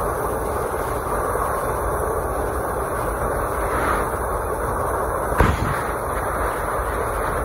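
Freight train rolling past with a steady rumble of wheels on rail. A single sharp bang comes about five seconds in.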